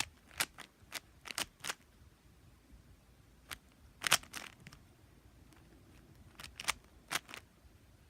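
Plastic Rubik's Cube layers being turned by hand: quick clicking clacks in short bursts of a few turns, with pauses between them.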